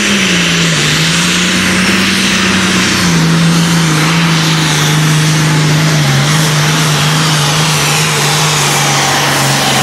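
Super Farm pulling tractor's diesel engine running flat out under load while dragging the weight-transfer sled. One steady, loud engine note that dips about a second in and then sags slowly lower as the pull goes on.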